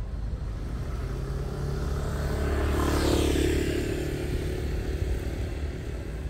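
A motor vehicle passing close by on the street: its engine and road noise swell to a peak about halfway through, with a falling pitch as it goes past, then fade away.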